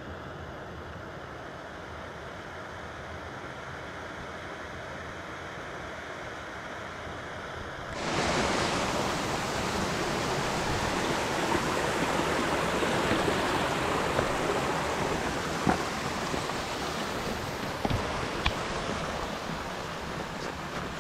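Small gas canister stove burning under a pot, a steady hiss. About eight seconds in, it gives way suddenly to a louder, even rushing noise, with a few brief knocks near the end.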